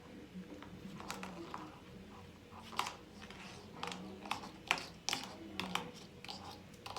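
Irregular light clicks and taps of a strand of small twinkle lights being handled as it is wound tightly around a pencil.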